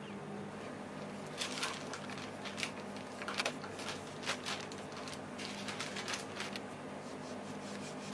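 Short scratchy rustles and light scrapes of hand work at a bench: a brass hammer head being handled on its wooden handle and a foam brush wiping finish onto the handle over paper. The rustles come in a loose series between about one and a half and six and a half seconds in, over a steady low hum.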